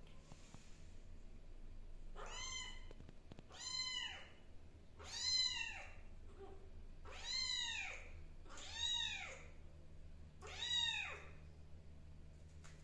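Young kitten meowing six times: short, high mews that each rise and fall in pitch, about one and a half to two seconds apart.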